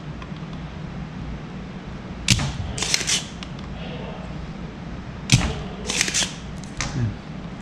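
Spring-loaded desoldering pump firing twice, about three seconds apart, as solder is sucked from a triac's joints on a washing machine control board: each time a sharp snap, followed about half a second later by a short rasping burst.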